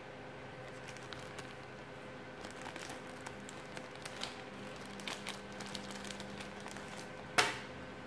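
Clear plastic packaging bag crinkling and crackling as it is handled and opened, with one sharp snap near the end, the loudest sound.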